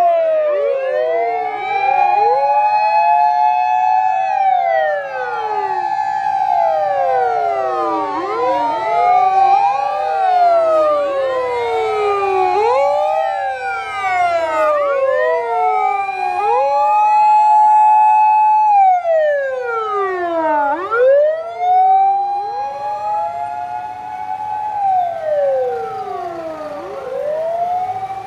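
Sirens of several Japanese fire engines and emergency vehicles sounding together while driving in. Many overlapping wails each climb quickly, hold and then slide down, over one steady held siren tone, with faint engine rumble beneath.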